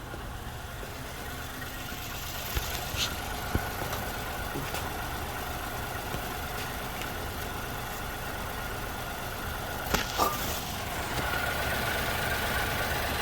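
2022 Ford Bronco Sport's 1.5-litre turbocharged three-cylinder engine idling steadily on freshly changed oil. There are a few light clicks early on and a short knock about ten seconds in.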